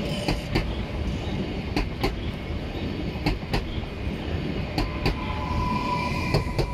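Koleje Dolnośląskie Newag Impuls electric multiple unit rolling slowly past, with a steady rumble and wheels clicking over a rail joint in pairs, about every second and a half, as each bogie crosses it. A faint steady whine comes in near the end.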